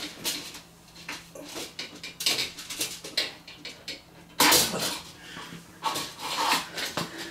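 A thin bar being slid through small screw-in hooks: a string of light clicks and scrapes, with a louder scraping rattle about four and a half seconds in.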